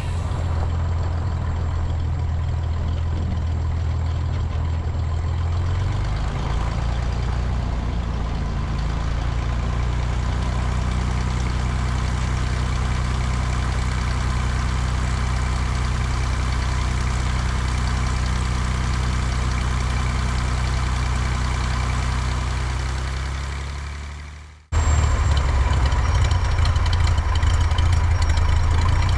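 Cessna 170's piston engine and propeller running steadily with a low drone, shifting slightly in pitch about six seconds in. Near the end it fades and cuts off, then comes straight back louder.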